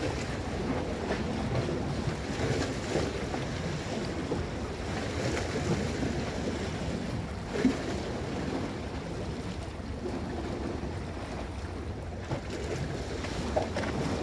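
Small Black Sea waves washing and splashing against shoreline rocks, a steady surging wash with a sharper splash about halfway through.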